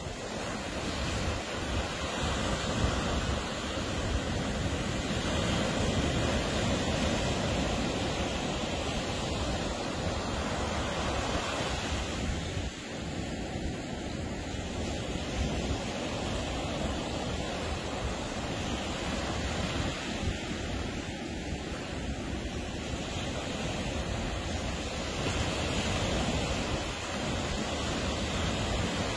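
Ocean surf breaking on a beach: a continuous wash of waves that swells and eases every few seconds.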